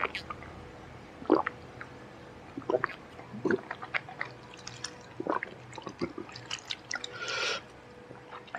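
Close-miked drinking and mouth sounds: scattered gulps, lip smacks and small clicks as he drinks from a plastic shaker bottle and sets it down, with a short hiss near the end.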